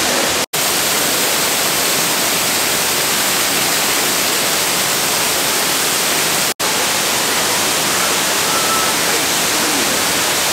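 Steady, loud rush of water pouring down an indoor waterfall feature. It cuts out twice for an instant, about half a second in and about six and a half seconds in.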